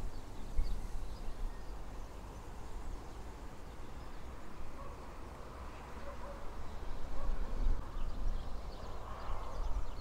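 Outdoor riverside ambience: an uneven low rumble of wind on the microphone, strongest in the first second, with faint bird chirps here and there.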